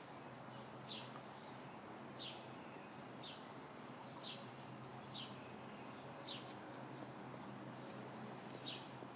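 A bird calling: a short, high note that slides downward, repeated about once a second, over faint outdoor hiss.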